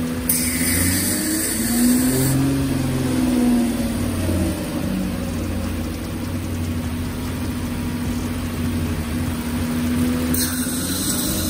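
Toyota 3.5-litre V6 running, its pitch rising and falling slowly, with a hiss for a couple of seconds at the start and again near the end.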